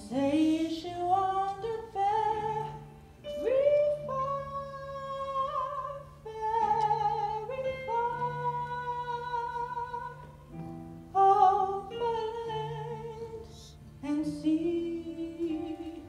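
A woman singing a slow melody of long held notes, sliding up into some of them and wavering on others, over low sustained accompaniment notes.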